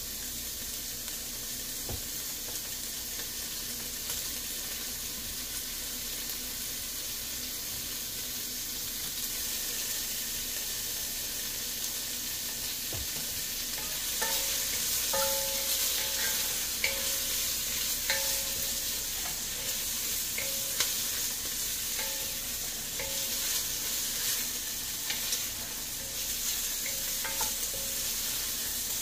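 Onion and tofu sizzling in hot oil in a pot, a steady hiss that grows louder about halfway through. In the second half a wooden spoon stirs them, with short squeaks and taps of the spoon against the pot about once a second.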